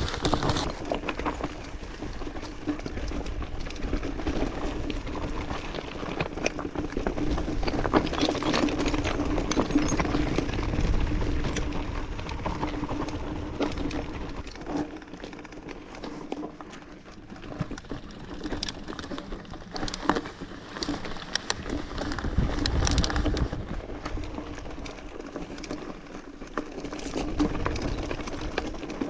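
Mountain bike riding down a rough, stony singletrack: tyres rolling and crunching over loose rocks and gravel, with frequent clicks and rattles from the bike and a low rumble.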